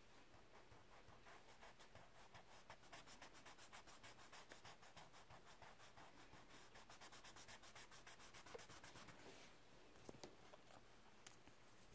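Faint, quick rubbing strokes on drawing paper as a charcoal drawing is worked by hand, stopping about three-quarters of the way through; a few light ticks follow.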